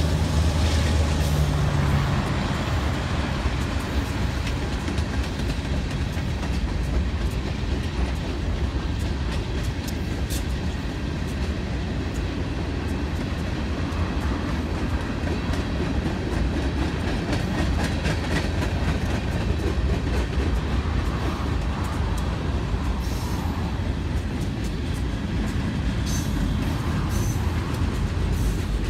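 Union Pacific freight train passing close by. Its diesel locomotives' low engine tones fade in the first couple of seconds. Then comes a steady rumble of tank cars and boxcars rolling over the rails, with the wheels clicking over rail joints.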